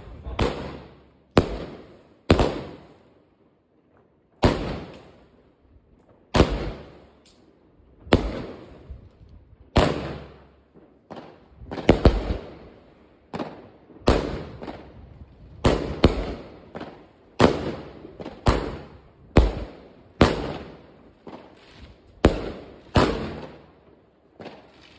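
Riakeo Vortex 5 consumer firework going off as a rapid series of loud bangs, about one a second, each a sharp report that dies away quickly, with a brief lull a few seconds in.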